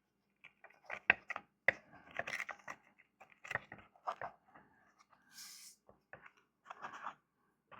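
Irregular small clicks, scrapes and rustles of hands working on a subwoofer driver during a refoam, with a brief high hiss a little past halfway.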